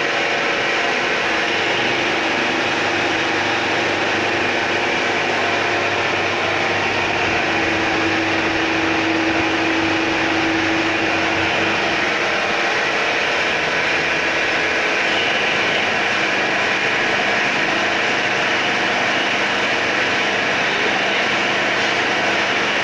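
CNC milling machine running steadily while milling AISI 1020 mild steel with the workpiece submerged in coolant: a continuous machine hum with a hiss of cutting noise, a humming tone swelling for a few seconds near the middle.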